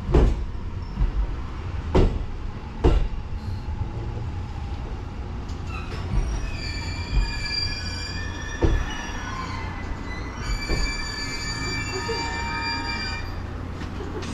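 Steady low rumble of a JR East Series E257 electric train standing at the platform, with a few knocks. From about six seconds in, a series of steady high tones that step in pitch, with a short break midway.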